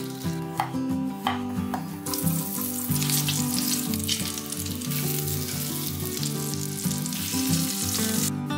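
Chicken fillet sizzling as it fries in foaming butter in a frying pan, starting about two seconds in and running steadily until just before the end. Before that, a couple of sharp knocks as boiled potato chunks drop into a metal colander. Background music plays underneath.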